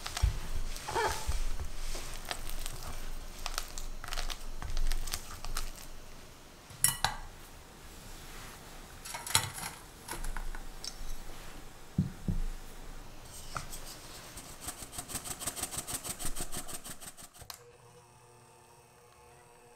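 Silicone spatula scraping softened butter around a glass mixing bowl, with a few knocks against the bowl, then powdered sugar shaken through a wire-mesh sieve. About two-thirds in the sieve gives a fast, even rattle for about three seconds.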